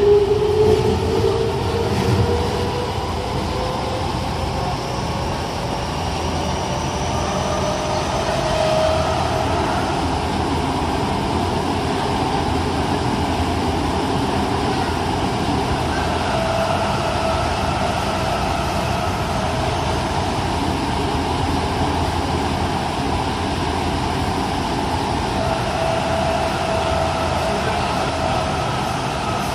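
Tokyo Metro 05 series subway train with Mitsubishi IGBT VVVF inverter drive, heard from inside the passenger car. The inverter and traction motor whine climbs steadily in pitch over the first several seconds as the train gathers speed, then holds a steady tone as it runs at speed. Wheel-on-rail rumble runs underneath.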